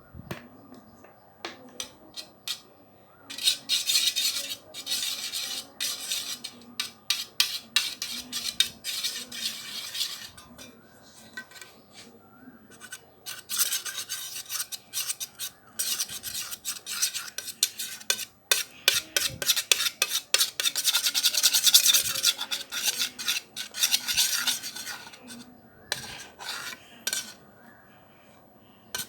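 A spoon scraping and stirring around a bowl while slime is being mixed, in two long scratchy runs with short clinks and taps between them.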